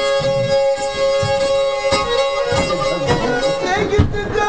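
Black Sea kemençe, a small upright three-string bowed fiddle, playing a folk melody with a steady held note sounding underneath, and a low thump near the end.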